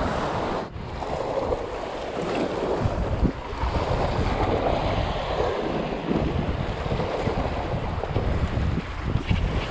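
Wind buffeting the microphone, a steady low rumble over the sound of sea waves around a boat.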